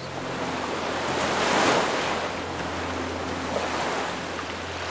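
Ocean waves washing in: a surge of surf swells to a peak about a second and a half in, then slowly draws back, over a faint steady low hum.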